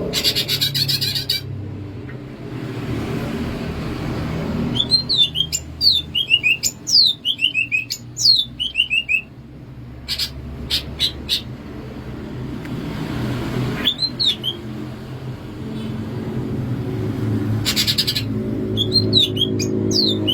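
Green leafbird (cucak ijo) singing: runs of quick, downward-sweeping whistled notes, broken by harsh rasping bursts right at the start and again about 18 seconds in.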